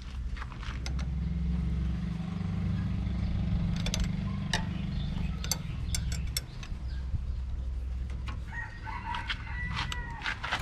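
A rooster crowing near the end, over a steady low rumble, with a few sharp clicks and taps in the middle.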